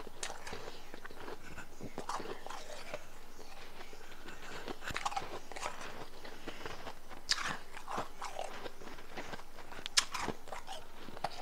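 Crunching and chewing of a mouthful of powdery blended ice, in irregular crisp crunches, with two sharper crunches about seven and ten seconds in.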